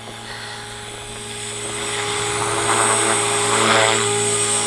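OXY 4 RC electric helicopter with a brushless Scorpion motor, running: a steady whine from the motor and rotors that holds one pitch and grows louder over the first couple of seconds as the helicopter comes close.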